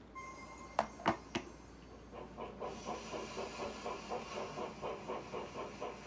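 A cartoon steam locomotive sound effect, played through a television speaker. A few sharp knocks about a second in, then from about two seconds in a steady chugging of about three to four chuffs a second, with a hiss of steam.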